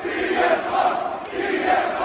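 Large arena crowd chanting in unison, a short chant repeated over and over in a steady rhythm about once a second.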